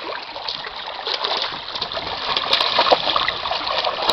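Water splashing as a young golden retriever wades through shallow sea water among rocks, louder from about halfway through.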